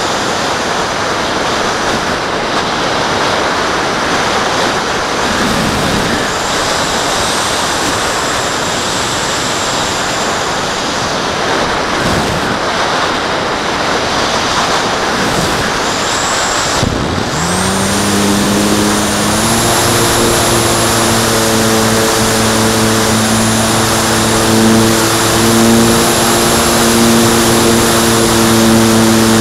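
Air rushing past a radio-controlled glider as it glides with its motor off. About 17 seconds in, the glider's motor starts and the propeller spins up with a rising pitch, then settles into a steady droning hum with a thin high whine.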